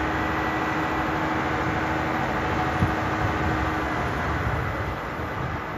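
Fire hose spraying a high-pressure water jet: a steady rushing hiss over the constant running of the pump that feeds it. It gets a little quieter about five seconds in.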